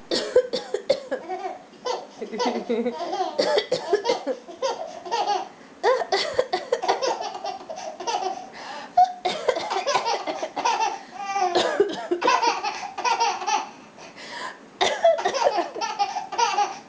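A woman coughing again and again while a baby laughs in bursts at the coughs.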